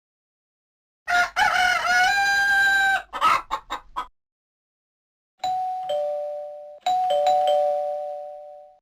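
Fly X3 phone ringtones played back through Yamaha MidRadio: first a rooster-crow ringtone, a crowing call that glides and then holds its pitch, followed by a few short clucks. After a second of dead silence comes a two-note ding-dong doorbell chime, high then lower, sounded twice and fading out.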